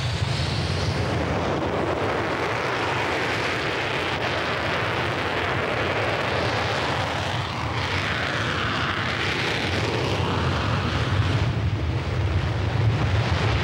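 Fighter jet engine at full power with afterburner: a loud, steady rushing noise over a deep rumble, its tone sweeping and shifting about eight seconds in.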